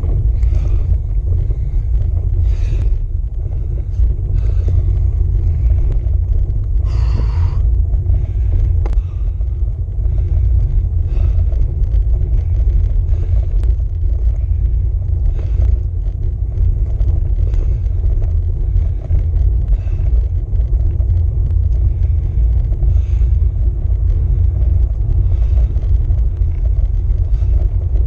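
Steady low rumble of wind buffeting the microphone of a handlebar-mounted camera on a road bike climbing a mountain pass, mixed with road vibration through the bars. Faint scattered ticks sound throughout, with a brief hiss about seven seconds in.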